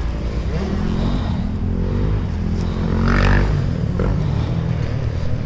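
250cc four-stroke dirt bike engine running at low revs, picking up briefly about three seconds in.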